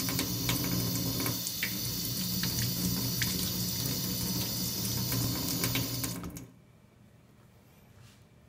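Kitchen tap running into a stainless steel sink, the stream splashing over a lemon being rinsed under it; the water stops about six seconds in.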